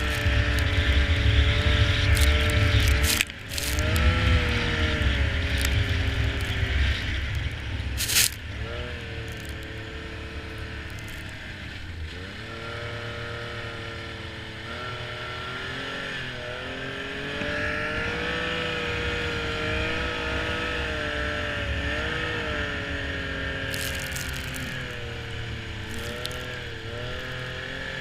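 Snowmobile engine running and revving up and down as it rides through snow. It is louder for the first eight seconds or so, with a brief drop about three seconds in, then runs quieter with its pitch rising and falling.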